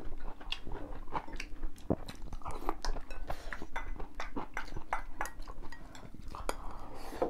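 Two people eating with chopsticks from porcelain bowls: many small irregular clicks of chopsticks against the bowls, with chewing.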